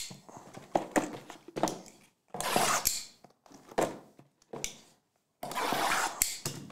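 Shrink-wrapped cardboard trading card boxes being handled and shifted: plastic wrap crinkling in two longer rustles, about two and a half seconds in and near the end, with light knocks of cardboard between.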